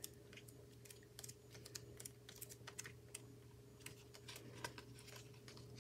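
Faint, irregular clicks and ticks of the stiff glossy sheets of a sticker book being flipped through by hand, over a low steady hum.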